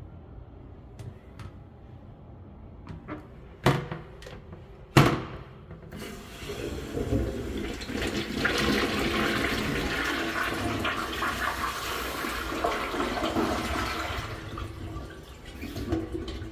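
Inus C552 toilet flushing. Two sharp knocks come about four and five seconds in. A rush of water follows, loudest for several seconds, then easing off near the end.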